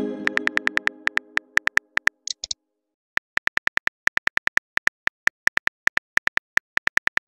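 Keyboard click sounds from a texting-story app, rapid and evenly spaced as a message is typed letter by letter, with a short pause near the middle. A received-message chime is fading out at the start.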